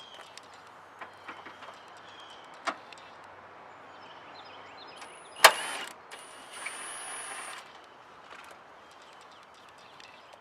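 Plastic interior trim clips being pried loose: scattered light clicks and taps, a sharp snap about halfway through as something pops free, then about a second and a half of scraping.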